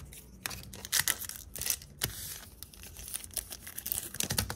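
Foil Yu-Gi-Oh booster pack wrapper being handled by hand, crinkling with many short, sharp crackles.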